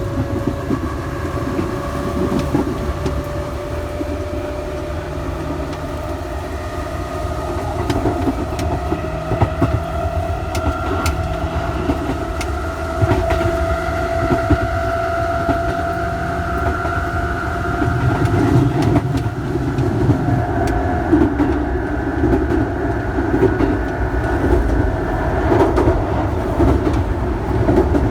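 Electric train's traction motors whining, the whine rising slowly in pitch as the train gathers speed, over a steady running rumble and the clack of rail joints.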